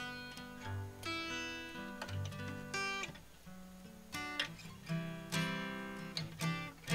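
Music: an acoustic guitar playing a series of plucked and strummed chords, each note ringing on after it is struck.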